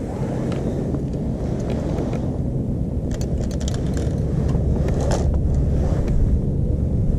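Wind rumbling steadily on the microphone, with a few light clicks and rustles of clothing and handling about three and five seconds in.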